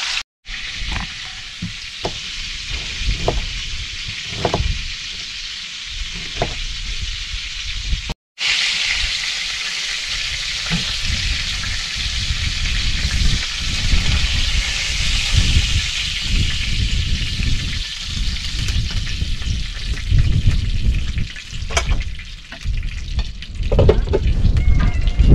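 Rabbit pieces frying in a skillet, a steady sizzle with scattered clicks and scrapes of a spatula against the pans and a low rumble underneath. The sound cuts out briefly twice, shortly after the start and about eight seconds in.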